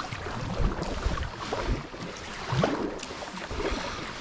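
Kayak paddle strokes: water splashing and dripping off the paddle blades and running along the kayak's hull, with wind rumbling on the microphone. The splashing swells twice, about half a second in and again past the middle.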